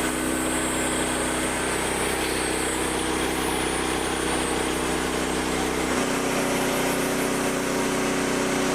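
Engine of a Frontier OS27 portable bandsaw sawmill running steadily; about six seconds in its tone shifts slightly.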